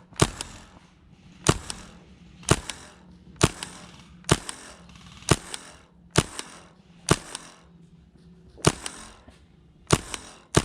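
Gas-powered airsoft gun firing single shots at a steady pace, about one a second, with about ten sharp pops.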